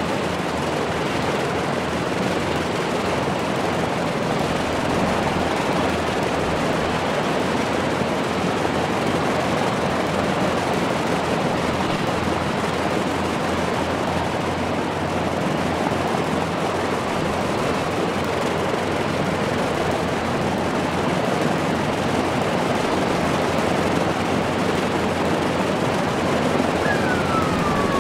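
Lockheed P-38F Lightning's twin Allison V-1710 liquid-cooled V-12 engines running steadily together on a ground run. A short falling whistle sounds near the end.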